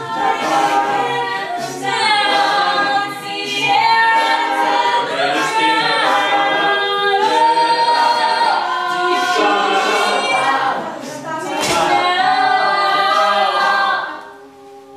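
A mixed-voice a cappella group sings, with a lead voice over layered backing harmonies and short crisp percussive clicks throughout. The singing drops away sharply about a second before the end.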